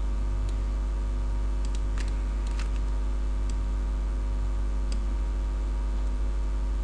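Steady low electrical hum in the recording, with about half a dozen faint, sharp computer-mouse clicks scattered through the first five seconds.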